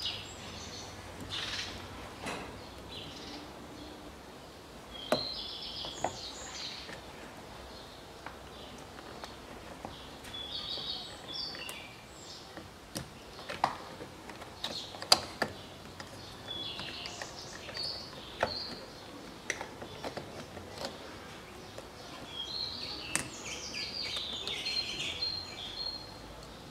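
Sharp plastic clicks and rattles from car-door wiring connectors and harness clips being handled and unplugged. A small bird chirps in short clusters about five times, every five or six seconds.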